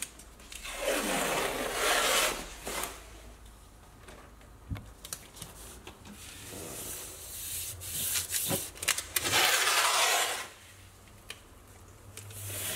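Blue painter's tape being pulled off the roll in two long ripping stretches, the second one longer, with a few small knocks of handling between them.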